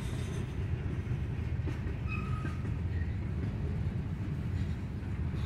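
Freight train of covered hopper cars rolling steadily past, a continuous low rumble of steel wheels on the rails.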